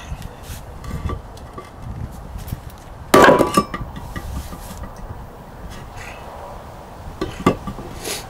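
Hammer blows knocking a rust-seized wheel hub assembly out of a brake rotor, with metallic ringing. One loud ringing strike comes about three seconds in, then a few small knocks, then two sharper strikes near the end.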